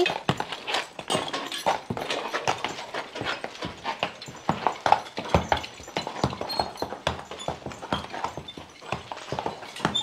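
Hooves of a team of draft horses clopping in slow, irregular steps as the team is backed up.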